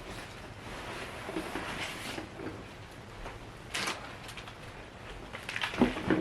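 Faint room noise with a short rustle about four seconds in, then a quick cluster of knocks and clatter near the end, as of someone moving about and handling objects.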